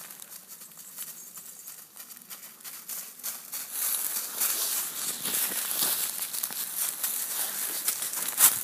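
Footsteps crunching and rustling through dry fallen leaves, quieter for the first few seconds, then louder, with one sharp crack near the end.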